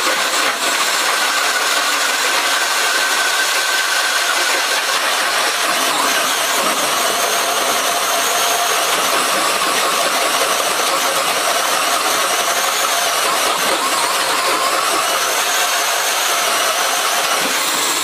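A DeWalt 18-volt cordless drill turning a hole cutter as it cuts through board, running steadily and without a break.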